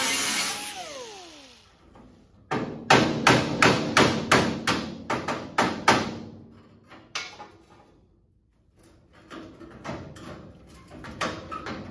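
An air-powered cutoff tool spins down with a falling whine. Then about ten sharp hammer blows on steel ring out, roughly three a second, as the rusted subrail extension is knocked loose. Lighter, scattered knocks and clanks follow near the end.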